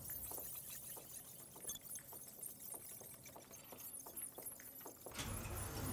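Faint footsteps and keyboard clicks in a quiet office: light, irregular taps a few times a second. A low hum comes back near the end.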